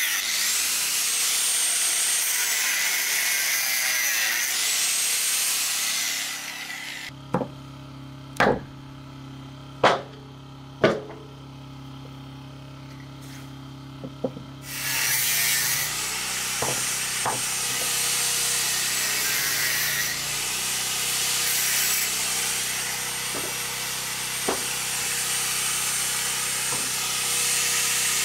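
Electric angle grinder with a cutting disc cutting through beef bone: a loud hissing grind over a high whine. It stops about six seconds in, leaving a quieter stretch with four sharp knocks. About fifteen seconds in it spins up and cuts again.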